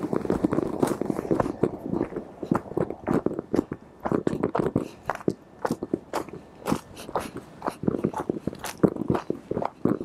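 Hiking footsteps crunching on a steep dirt trail with rough steps, irregular and close together as the walker climbs.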